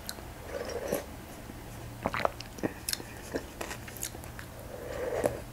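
Close-miked eating sounds of chicken soup: a soft blow to cool a spoonful, then scattered small wet mouth clicks and chewing, and a breathy sip from the spoon near the end.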